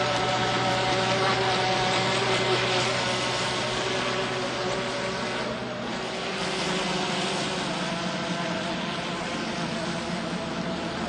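Pro Boat Mini-C electric RC catamaran running at speed on the water: a steady whine from its electric motor over the hiss of spray off the hull, dipping briefly about halfway through.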